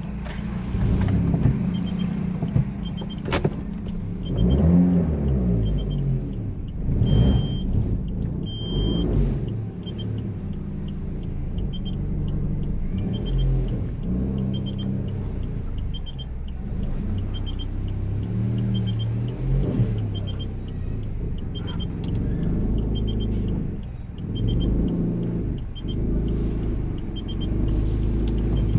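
Suzuki Ignis's engine running at low speed while reversing, its pitch shifting up and down as the throttle varies. A short high electronic beep repeats about once a second throughout, and there is a single sharp click about three seconds in.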